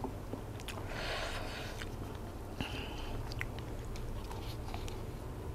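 Close-miked eating sounds: a leaf-wrapped bite of silkworm-pupa salad with green mango being put in the mouth and chewed, with two short soft rustles and scattered small clicks.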